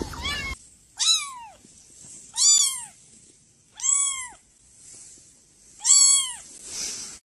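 Cat meowing four times in a row, each meow rising then falling in pitch.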